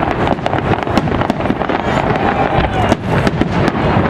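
Fireworks display: many shells bursting at once, a dense run of bangs and crackles over a continuous low rumble.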